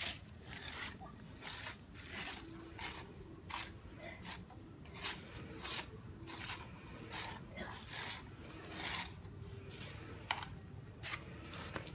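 Hands scraping and scooping loose sand into plastic toy dump trucks: a string of short, hissy scrapes, roughly one or two a second.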